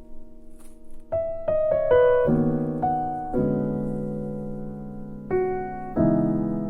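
Background music: soft piano playing slow chords, each struck and left to ring and fade.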